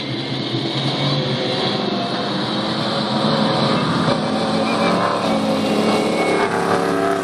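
Off-road race vehicle engine running continuously under load, its pitch edging upward over the last few seconds.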